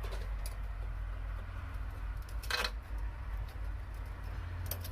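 Light fixture being taken off by hand: faint clicks of small metal parts, with one louder short scrape about two and a half seconds in and another near the end, over a steady low rumble.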